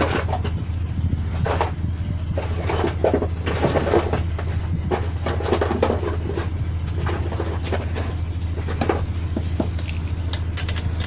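Bolts being fitted by hand into the crankcase cover of a Yamaha 15 hp outboard engine block: scattered light metal clinks, taps and knocks, over a steady low hum.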